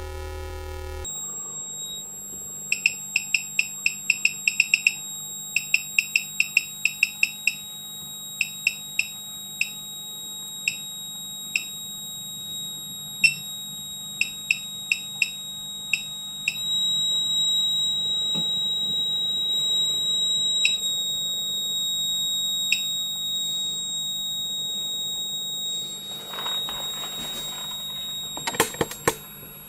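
Bench power supply's keypad giving short electronic beeps as its buttons are pressed. They come in quick runs of about four to five a second early on, then singly and further apart. Under them runs a steady high-pitched electronic whine, which steps slightly in pitch about halfway through.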